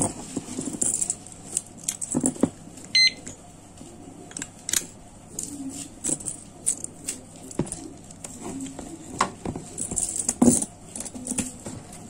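Keys and an alarm padlock being handled: irregular metallic clicks and jingles, with one short high beep about three seconds in.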